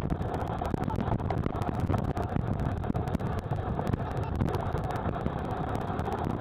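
Sped-up sound of a dog sled running on a snow trail, from a camera mounted on the sled: a steady rushing rumble, dense with rapid small clicks and knocks.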